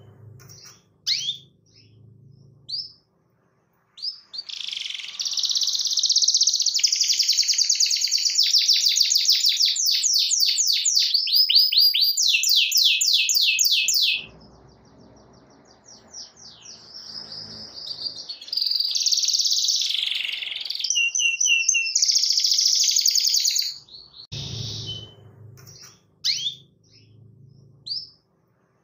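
Domestic canary singing: two long stretches of fast, high trills with short chirps in the pauses between them.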